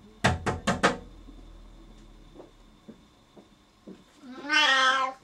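Four quick knocks about a quarter second in, then near the end one long, loud, slightly rising meow from a Siamese cat calling after its owner, who has gone downstairs behind a closed door.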